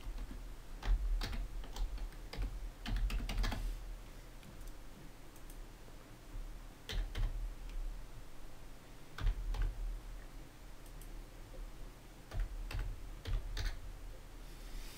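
Computer keyboard typing in short bursts of keystrokes separated by pauses: a longer run near the start, then a few shorter groups.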